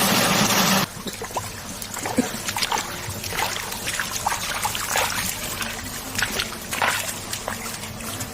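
A loud steady machine noise cuts off abruptly just under a second in. Then water trickling and splashing, with scattered short clicks and clatters.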